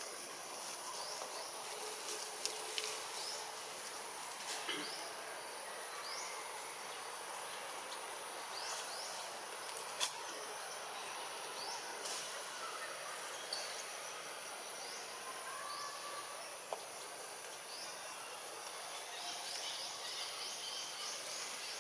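Tropical forest ambience: a steady high insect drone under a bed of natural noise, with scattered short rising bird chirps and a few sharp clicks.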